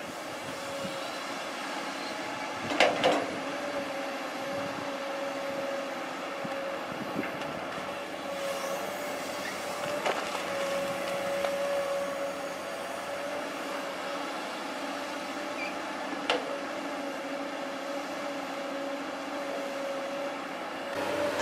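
Long-reach excavator running with a steady whine, and sharp metallic clanks: two about three seconds in, and single ones later.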